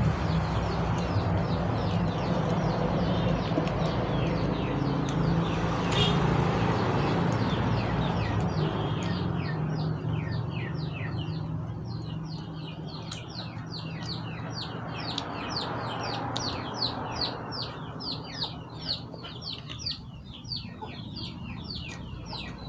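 Small birds chirping over and over in quick, short falling chirps, several a second. They stand out more in the second half as a low steady hum and rushing noise underneath fade away.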